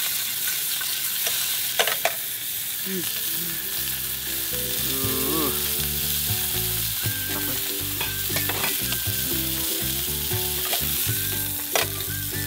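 Sausages frying in oil in a pan on a portable gas stove, a steady sizzle, with a couple of sharp clicks and taps.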